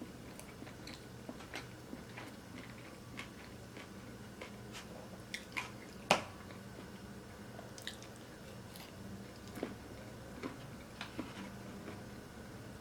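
Close-miked chewing and wet mouth sounds, with scattered small clicks from biting and chewing; one sharper click about six seconds in stands out.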